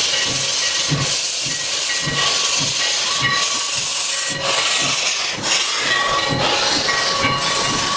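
Steam locomotive, Sierra Railway No. 3, running with a loud steady steam hiss and a low beat about twice a second.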